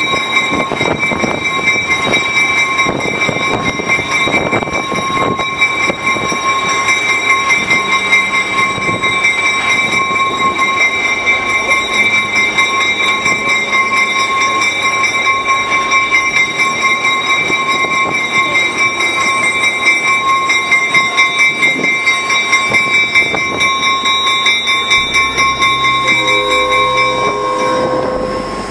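Steel wheels of the passenger train squealing against the rails: a steady, high squeal of several held tones over the rumble and clatter of the rolling cars.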